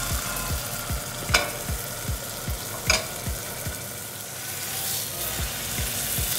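Steak frying in hot olive oil in a nonstick pan, a steady sizzle, broken twice by a sharp click about a second and a half apart.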